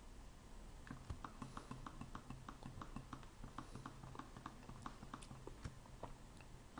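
Faint, rapid clicking at a computer, starting about a second in, several clicks a second.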